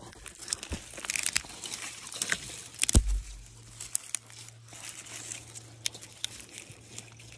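Dry sticks and twigs crackling and snapping as they are picked up and handled, with footsteps over moss and forest litter. One loud sharp crack with a thud comes about three seconds in.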